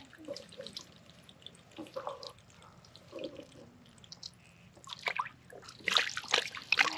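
Water dripping and lightly splashing, with the splashing and sloshing growing louder and busier near the end.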